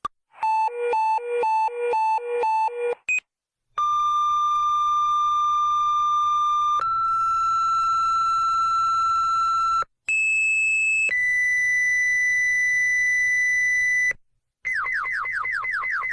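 Synthesized emergency alert tones. A quick alternating high-low two-tone beep runs for about three seconds, followed by a series of long steady tones, each held about three seconds and stepping to a different pitch, with short silences between. Near the end comes a rapid falling sweep repeated about four times a second.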